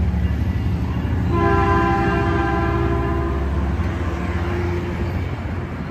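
Metrolink commuter train's bilevel coaches running past at close range with a steady low rumble, and the train's horn sounding one long chord of about two seconds, a little over a second in.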